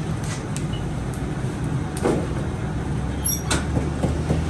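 Steady low mechanical hum of bakery machinery, with a couple of short knocks, one about two seconds in and another about three and a half seconds in.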